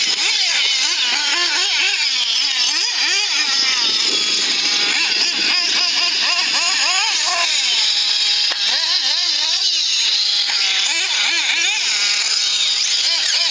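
Nitro-powered RC race cars' small glow-fuel engines running at high revs, their pitch rising and falling over and over as the throttle is opened and closed around the track.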